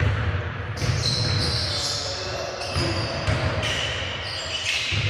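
Indoor basketball game sound: a ball bouncing on a hardwood court in repeated thuds, with short high squeaks of sneakers and players' voices in the echoing gym.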